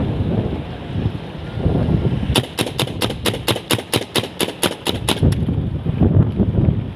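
Air rifle fired in a rapid string, about fifteen sharp shots at roughly five a second, starting about two seconds in and stopping after about three seconds. Wind rumbles on the microphone throughout.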